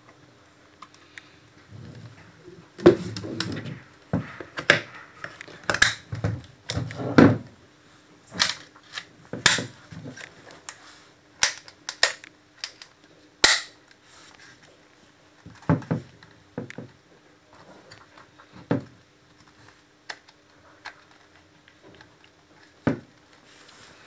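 Hard plastic underwater camera housing being handled and shut: a run of sharp clacks and clicks, thickest through the first half, then a few scattered knocks.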